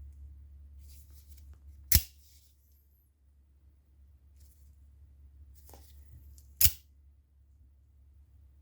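Out-the-front automatic knife snapping twice, about two seconds in and again about five seconds later, as its spring-driven blade fires and retracts, with faint handling clicks between. A low steady hum runs underneath.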